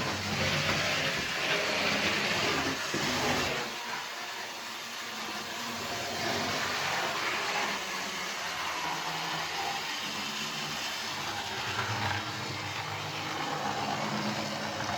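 Rebuilt early-1980s HO-scale DC diesel switcher running slowly on model track: its small electric motor and gears hum while the wheels rattle over the rails. The running noise is louder for the first few seconds, then settles quieter.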